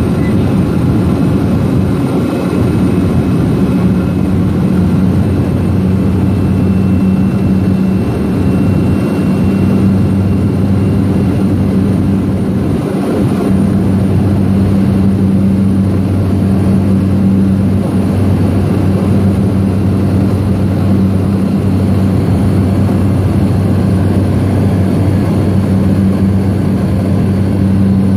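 Seaplane's piston engine and propeller running steadily in cruise, heard from inside the cabin as a constant low drone with an even rush of noise.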